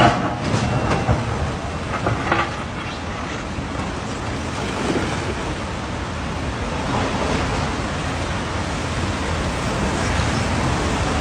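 A heavy vehicle running, heard as a steady, even noise with no clear engine note.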